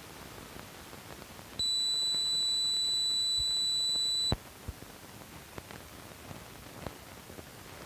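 A steady high-pitched beep tone, a little under three seconds long, that starts about a second and a half in and cuts off abruptly. Around it are the faint hiss and scattered clicks of an old film soundtrack running through its leader.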